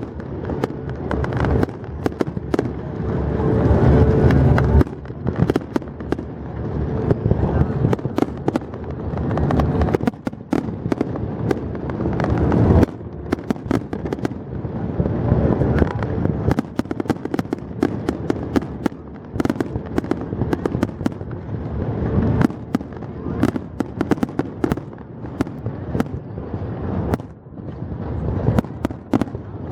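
Aerial fireworks going off: a dense run of sharp bangs and crackles over a continuous low rumble that swells and eases.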